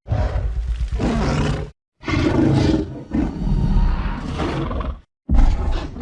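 Giant-ape monster (Kong) film sound effects: a series of about four deep, loud roars and growls, each cut off abruptly with a short silence between clips.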